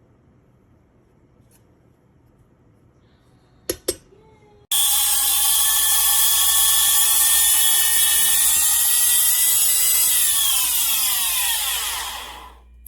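LEJIEYIN 750 g high-speed electric grain mill: after two clicks its motor starts suddenly at full speed with a loud high whine. It runs steady for about five seconds, then its pitch falls as it spins down and stops.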